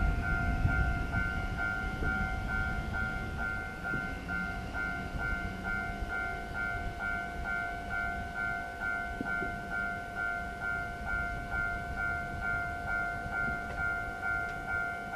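Railway level-crossing alarm bell ringing steadily at about two dings a second, the warning that a train is approaching. A low rumble sounds in the first second.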